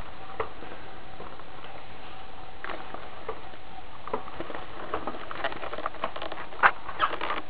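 Small clicks and clacks of the Godaikin Bio Dragon toy's die-cast metal and plastic parts being handled and shifted as it is transformed, an irregular scatter of taps with the sharpest knock about two-thirds of the way through.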